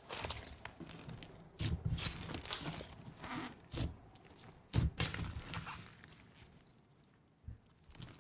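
Fluffy slime squeezed and pressed by hand: irregular squishing and crackling with sharp little pops, loudest about two and five seconds in, then softer.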